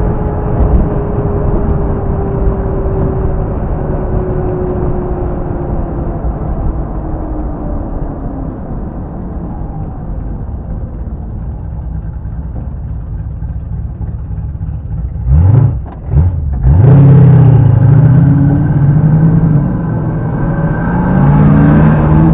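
Classic car engine heard from inside the car, running steadily with a slowly falling pitch as it slows. About fifteen seconds in it is revved sharply twice, then accelerates hard and gets much louder.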